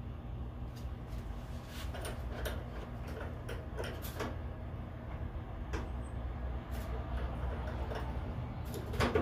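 Scattered light clicks and knocks of a plastic bug deflector visor being handled and pressed against the front edge of a car hood while it is fitted, with the loudest knocks near the end. A steady low hum runs underneath.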